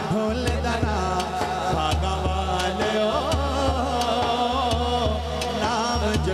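Devotional naat music: a male voice singing a wavering, ornamented melody through a microphone, over a daf frame drum beating a steady rhythm, with a low steady hum beneath.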